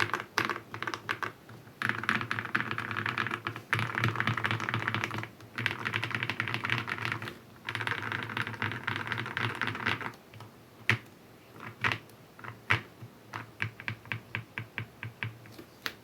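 Typing on a mechanical keyboard: Gateron Ink Black v2 linear switches, which the owner guesses are over-lubed, under Akko PBT doubleshot keycaps on a tape-modded, o-ring-mounted, foam-filled RK61. A few separate keypresses, then fast continuous typing from about two seconds in to about ten seconds with short pauses, then slower single presses and a quick even run of presses near the end.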